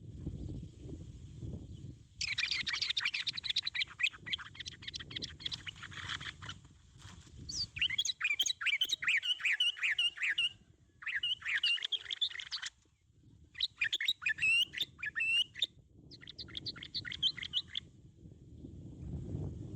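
Bird calls: five bursts of rapid chirping and warbling notes, each a second or few long, starting and stopping abruptly with short gaps between them. A low rumbling noise fills the first two seconds and returns near the end.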